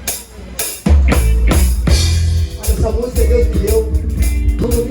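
Live band music starting up: drum kit hits, with a Waldman Turbo 2.0 electric bass coming in with loud, sustained low notes about a second in.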